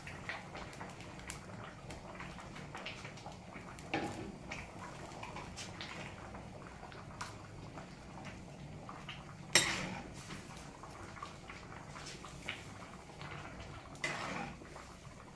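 A utensil clinking and knocking against a cooking pot, with light clatter and a few sharper knocks, the loudest about halfway through.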